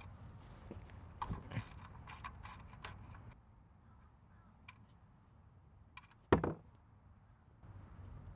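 A ratchet clicks several times as the 14 mm oil drain bolt on a 1999 Toyota Sienna's steel oil pan is loosened. A single louder thump comes about six seconds in, and near the end a faint steady rush begins as engine oil pours out of the drain hole.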